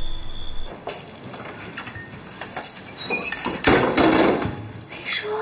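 Dishes and cutlery clinking and clattering at a kitchen sink during washing-up, with a louder rush of noise about three and a half seconds in, likely the tap running.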